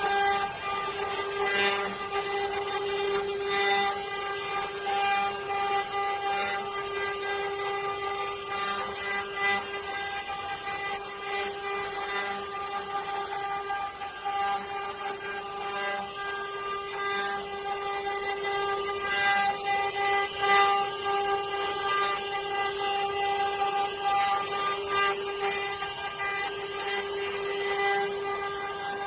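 CNC wood-carving router running, its spindle giving a steady, unchanging whine over the rough noise of the bit cutting wood.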